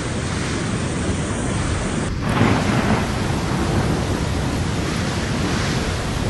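Steady rushing noise of torrential rain and floodwater, heavy in the low range. It changes abruptly about two seconds in, to a somewhat louder, fuller downpour.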